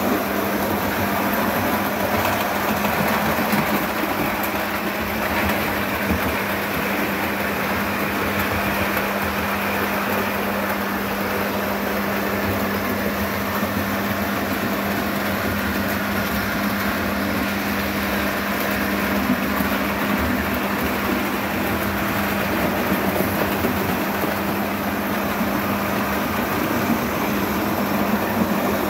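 Model railway trains running: a steady motor hum with the rolling noise of wheels on the track.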